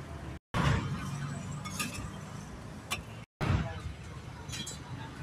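Street-food market bustle with background voices and a sharp clink near the middle, broken by two brief cuts to dead silence.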